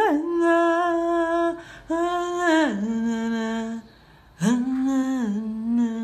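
A voice humming long held notes, each sliding down in pitch at its end, with short breaks between.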